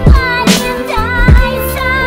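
An electronic pop beat: a kick and snare pattern under a sliding melodic lead, with a wordless, vocal-like line bending in pitch.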